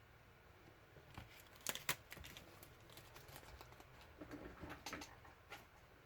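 Faint scattered clicks and taps, the loudest two close together about two seconds in, with a few more near the end.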